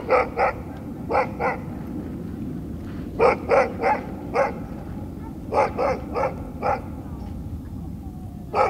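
A dog barking in short volleys of two to four barks, a volley every couple of seconds, over a steady low background noise.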